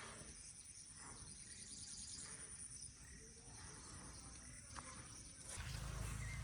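Faint steady high-pitched drone of insects such as crickets, with a couple of faint clicks; a low rumble comes in near the end.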